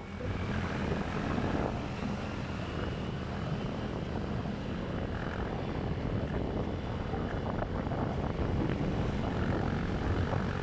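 Motorcycle riding along a road, heard from the pillion: a steady engine hum and road noise, with wind rushing over the phone's microphone.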